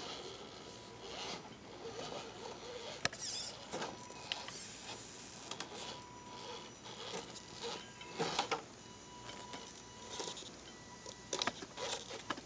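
Radio-controlled scale rock crawler climbing over rocks: its small electric motor and drivetrain run in short on-off bursts with a faint whine, while the tyres and chassis give sharp clicks and scrapes against the stone, three louder ticks standing out.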